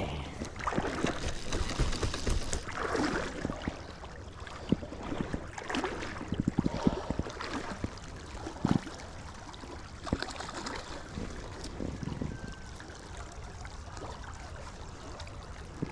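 Flowing river water with scattered splashes and short knocks.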